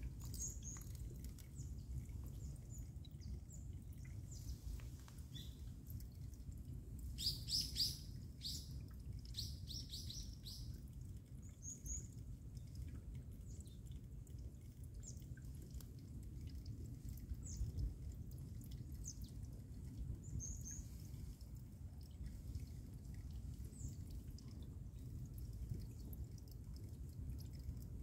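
Mountain stream running under and through a partly frozen cascade: a low, steady rush of water. Short, high chirps come now and then, most of them about seven to eight seconds in.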